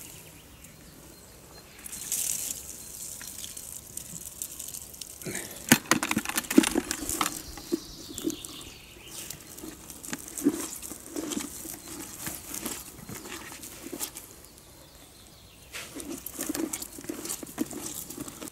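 Hands squeezing and mashing water-soaked bread in a plastic bucket: irregular wet squelching and crackling, mixing bread groundbait.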